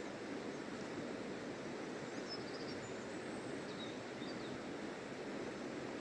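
A shallow river running steadily over rocks, with a few faint high bird chirps a little after two seconds in and again around four seconds.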